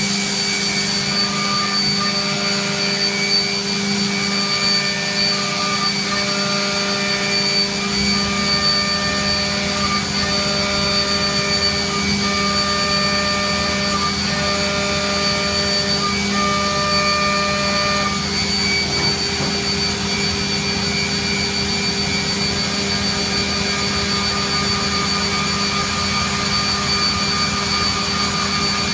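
Mazak VCN 510C vertical machining center running, its spindle whining steadily at speed over a broad rushing noise. A high hiss stops about a second in, and other tones switch on and off in short steps until a little past halfway.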